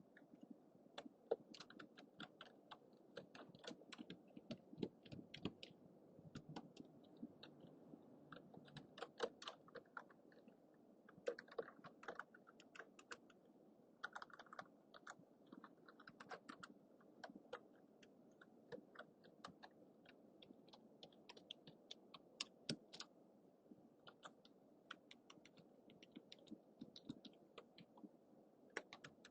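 Typing on a computer keyboard: quick, irregular key clicks, faint, over a steady low hum.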